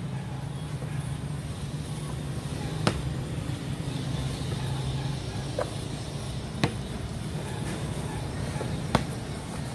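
Basketball bouncing on a concrete slab: three sharp bounces a few seconds apart, over a steady low hum.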